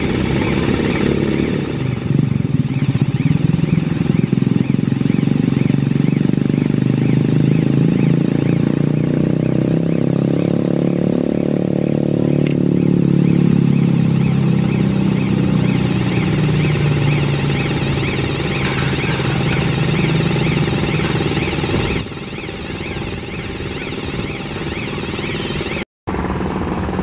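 Bridge girder launcher's power unit running steadily as the launcher travels forward, with a high warbling tone repeating over it. The running sound drops in level a few seconds before the end, as the movement finishes.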